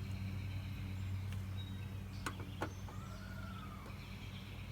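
A steady low hum, with two sharp clicks a little past halfway, the sound of plastic bumper trim clips being pried loose.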